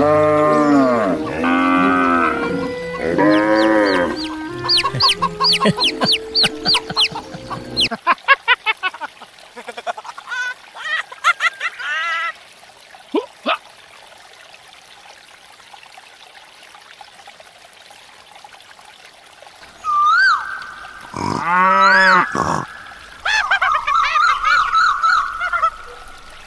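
Farmyard bird calls, goose honks and chicken clucks: a dense run of calls for the first several seconds, a quieter stretch with only a few scattered calls, then more loud calls near the end.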